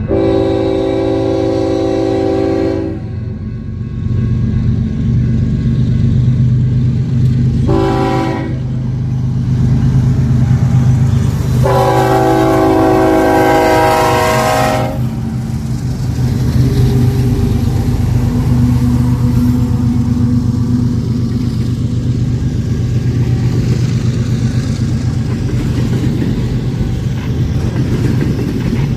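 Locomotive air horn sounding a chord: a long blast, a short one about 8 s in, then another long blast, over the steady low rumble of diesel locomotives, which carries on as the train rolls by.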